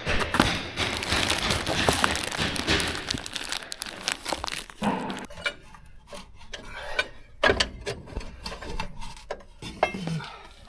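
Clattering and rattling of metal hand tools and parts being rummaged and handled for about four seconds, then scattered sharp knocks and clicks.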